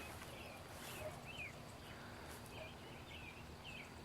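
Small birds chirping faintly: a steady run of short, high chirps several times a second.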